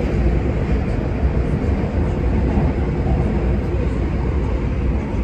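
Steady low rumble of a Hong Kong Airport Express train running, heard from inside the passenger carriage.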